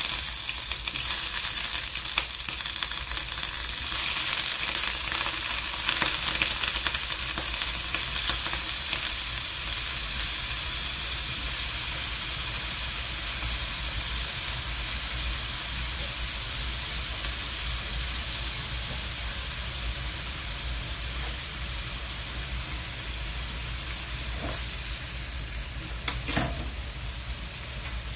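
Paneer cubes sizzling as they shallow-fry in hot oil in a nonstick frying pan: a steady hissing crackle, louder over the first several seconds as more cubes go in, then slowly easing off. A single short knock near the end.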